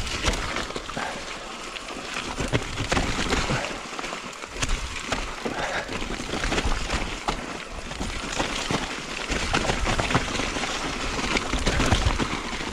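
Mountain bike ridden down a rough, rutted dirt trail: tyre noise on the dirt with a continuous clatter of frequent knocks and rattles as the bike goes over drops and ruts.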